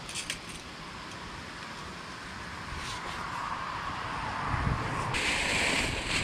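Handling noise and rumble on a body-worn camera's microphone, with a couple of light clicks just after the start. About five seconds in, a clear plastic bag rustles loudly for about a second.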